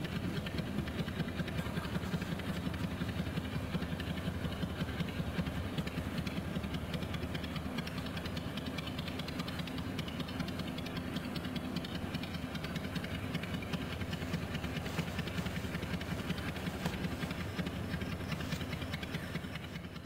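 Cloth rubbing a thick paste of chrome polish hard against a chrome pipe: a steady, gritty scrubbing that goes on without a break.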